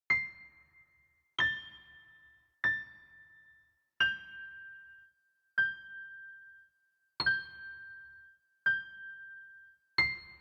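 A slow sad melody of single chime-like keyboard notes, struck one at a time about every second and a half, each ringing and fading. The tune steps down from its first note and settles on one lower note repeated several times, then returns to the opening note at the end.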